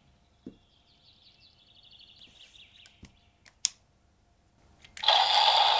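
A few light plastic clicks as the DX Omni Force Wonder Ride Book toy is handled, then about five seconds in the toy's electronic sound effect starts playing loudly. A faint high chirping runs under the quiet first half.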